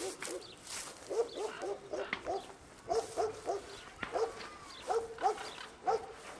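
A dog barking repeatedly in short runs of a few barks each.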